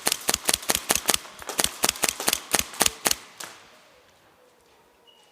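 Airsoft gun running on compressed air (HPA) through a Wolverine Storm regulator, firing a rapid string of sharp shots, about five a second, that stops a little after three seconds in.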